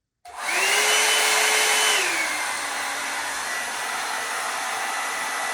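Revlon hot air brush (blow-dryer brush) switched on: its fan motor starts with a rush of air and a steady whine. About two seconds in, the whine slides down in pitch and the brush runs on steadily, slightly quieter.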